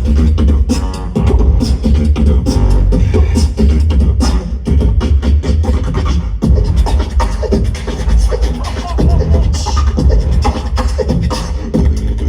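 Live tag-team beatboxing amplified through a sound system: a deep, steady bass line under a fast run of vocal kick, snare and click sounds.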